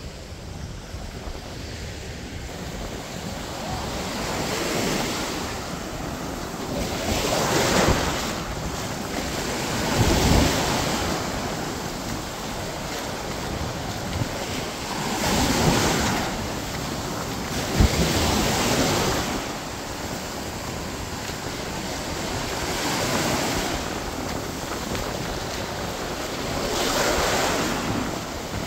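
Small waves breaking and washing up onto the sand at the water's edge, a rushing surge that swells and fades every few seconds, with wind buffeting the microphone.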